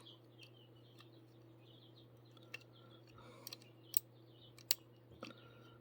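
Faint, scattered small clicks and taps of tweezers against the plastic parts of a rotary cutter while its spring is worked into place, over a low steady hum.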